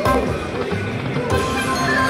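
An Aristocrat Lightning Link slot machine plays its electronic spin music and tones while its reels spin and land. A new set of held tones comes in partway through, as the reels settle.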